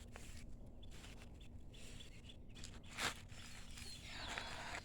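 Faint rustling and scraping of digging through garden soil while harvesting potatoes, with one short sharp knock about three seconds in and a louder rustle near the end.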